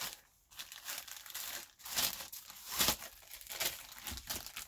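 Clear plastic sleeve crinkling and rustling as a rolled-up canvas is slid into it, with the loudest rustles about two and three seconds in.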